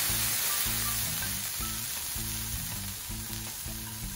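Sizzling and steam hiss from a hot flat-top griddle: water squirted under a steel basting dome is steaming off, with sliced potatoes frying beside it. The hiss slowly dies down.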